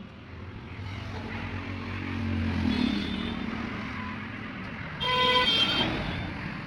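A motor vehicle passes by, its engine noise swelling and then fading. About five seconds in, a vehicle horn sounds for about a second.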